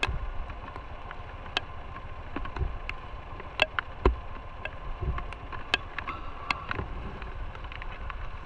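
Low rumble of a motorcycle ride with wind on the microphone, broken by irregular sharp ticks and clicks.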